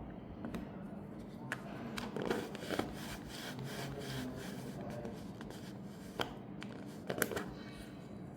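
Light clicks, taps and rubbing of small watch parts and tools being handled during a watch battery change, with a few sharper clicks scattered through.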